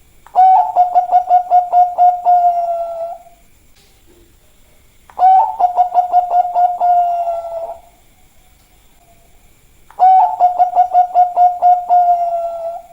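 Zebra dove (perkutut, Bangkok type) singing three cooing phrases about five seconds apart. Each phrase is a fast run of about six pulsed coos a second that runs into a longer drawn-out note.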